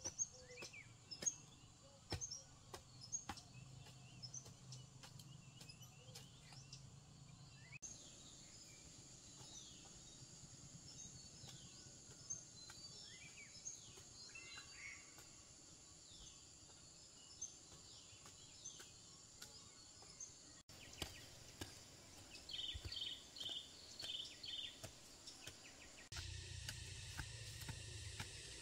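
Faint birdsong: scattered short chirps over a low steady hum, with a quick run of about six high notes late on. Light clicks and taps come through in the first several seconds.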